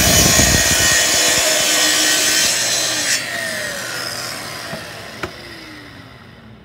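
Festool TS55 plunge track saw cutting through a board along its guide rail. About three seconds in the cutting noise stops and the motor and blade wind down with a falling whine. A short knock comes about five seconds in.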